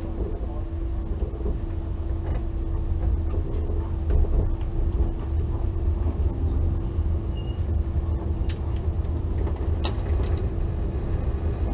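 Metra commuter train heard from inside a passenger coach as it starts to pull out of a station: a steady low rumble that grows louder over the first few seconds, with a steady hum that fades out about halfway and a few sharp clicks near the end.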